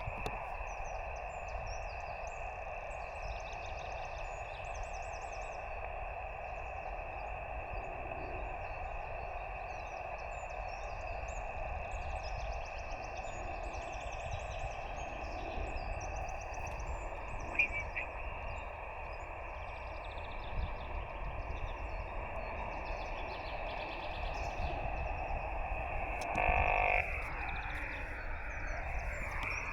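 Shortwave receiver hiss from a LAB599 TX-500 transceiver's speaker, tuned to an empty stretch of the 20 m band in SSB mode, steady and cut off above about 2.7 kHz by the SSB filter. Small birds chirp over it. Near the end a brief louder burst of signal comes through, followed by faint gliding tones.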